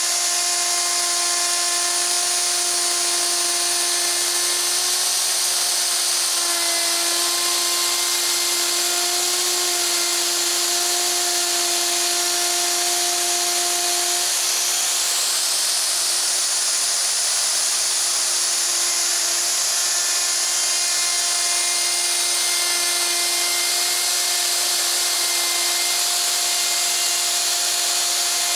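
Festool plunge router running under load, its bit routing a 5 mm deep groove in plywood: a steady high whine over the noise of the cut. The pitch shifts slightly about halfway through.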